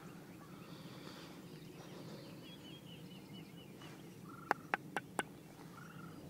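Hand-held turkey call worked softly, a faint run of yelps, then four sharp clucks in quick succession about two thirds of the way in.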